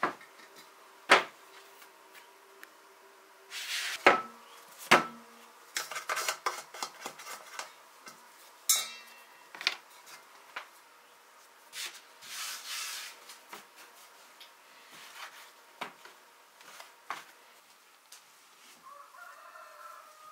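Kitchen utensils and dishes knocking and clinking in irregular strokes, with short scraping sounds between them and two clinks about four and five seconds in that ring briefly.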